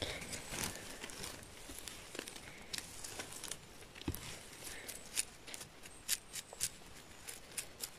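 Close handling sounds as chanterelle mushrooms are picked: leaves and moss rustling, with short sharp scrapes and clicks from the mushroom knife cutting stems and its brush cleaning the caps. The clicks come more often in the second half.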